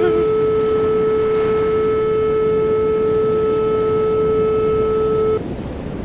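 Electronic alarm tone: one steady, buzzy pitch held for about five seconds that cuts off suddenly, leaving a hiss. At the very start the tail of a wavering, downward-sliding wail fades out.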